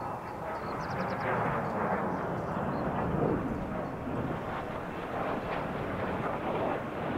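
JF-17 Thunder fighter's single RD-93 turbofan in flight: a continuous rough, rushing jet noise as the aircraft passes, swelling slightly around the middle.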